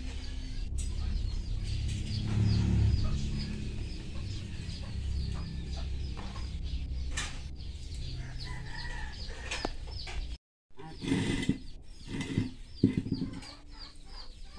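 Chickens clucking and peeping, with a steady run of rapid, high falling chirps. The sound cuts out for a moment about ten seconds in, followed by a few short knocks.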